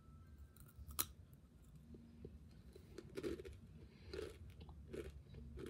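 A red rolled spicy tortilla chip bitten off with one sharp crunch about a second in, then chewed close to the microphone, crunching roughly once a second.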